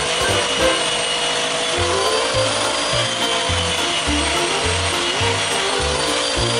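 Belt sander turned upside down running, with a ponderosa pine piece pressed against its moving belt: a steady grinding rub with a high motor whine. Background music with a pulsing bass line plays over it.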